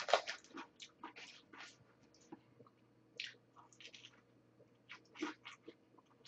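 Mouth sounds of someone biting into and chewing a soft chocolate-glazed doughnut: faint, scattered wet smacks and clicks.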